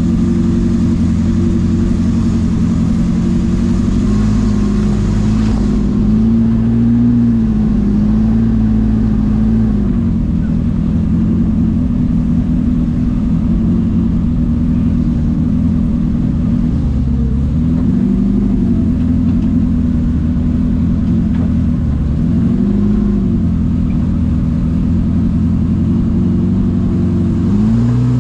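Engine of a Toyota FJ40-based trial buggy heard from inside its open cab, running at low revs that rise and fall in short swells several times.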